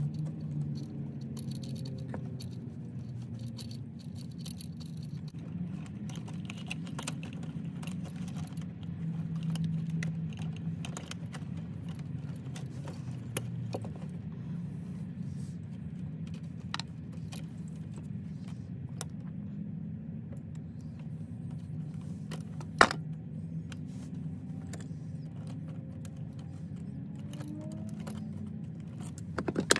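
Scattered metallic clicks and clinks of electrical wires and tools being handled while splicing wires in a box, with one sharper click about 23 seconds in, over a steady low hum.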